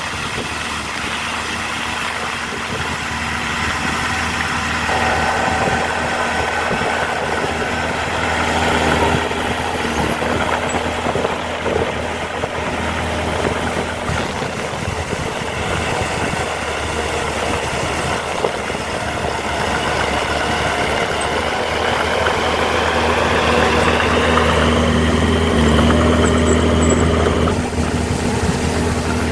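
Heavy diesel earthmoving machinery running with a steady low engine drone. The engine gets louder for a few seconds in the last third.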